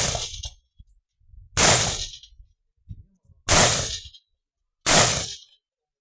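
Carbine shots fired one at a time, about one every one and a half to two seconds: the tail of a shot at the very start, then three more sharp reports, each dying away within about half a second.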